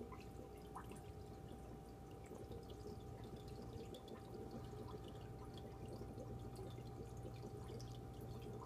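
Aquarium water trickling and dripping: many small, irregular drips and pops over a steady low hum.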